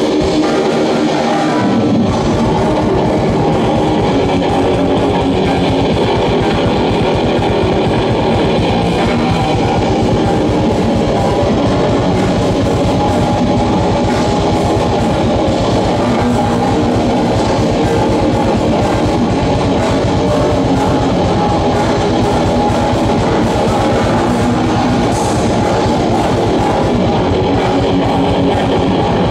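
Heavy metal band playing live: distorted electric guitars alone at first, then the drums and bass come in about two seconds in with a fast beat.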